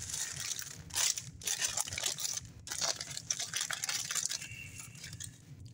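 Paper sandwich wrapper crinkling and rustling as a sub is unwrapped by hand, in irregular crackles with a few louder crumples, dying down near the end.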